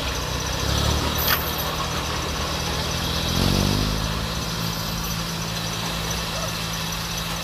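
Diesel engine idling steadily, revving up briefly about three and a half seconds in, with one sharp knock about a second in.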